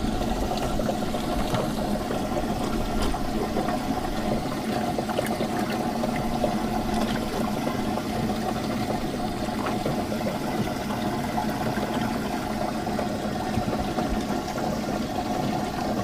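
Bass boat livewell pump running steadily and splashing water into the livewell, with a constant motor hum under the water noise. It starts suddenly at the outset, switched back on after the livewell had been accidentally turned off.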